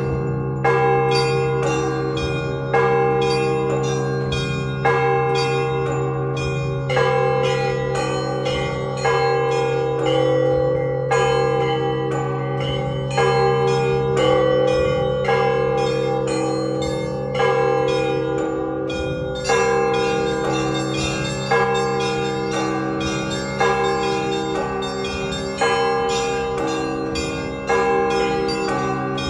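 Russian Orthodox church bells rung as a zvon marking the end of a service. A deep bell is struck about every two seconds, its low hum carrying on underneath, while smaller bells ring quick patterns between the strikes.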